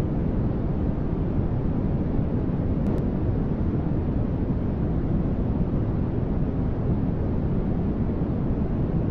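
Continuous generated static noise for sleep and masking: a steady, unchanging rushing hiss, weighted toward the deep end.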